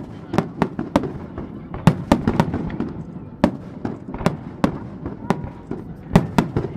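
Aerial fireworks shells bursting overhead in quick, irregular succession: a dozen or more sharp bangs, some in tight clusters, with a low rumbling echo carrying between them.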